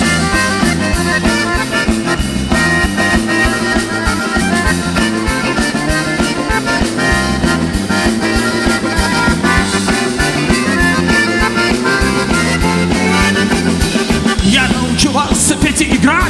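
Live rock band playing a song's instrumental intro: a bayan (Russian button accordion) carries the melody over drums and bass guitar at a steady, fast beat.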